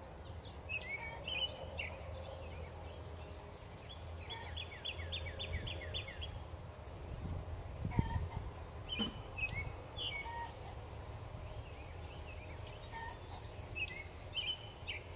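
Birds chirping and calling, with a quick trill of about eight notes a few seconds in, over a steady low rumble. There is a dull knock about eight seconds in.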